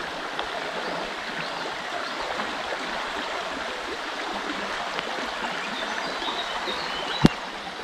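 River water running steadily, with a single sharp click near the end.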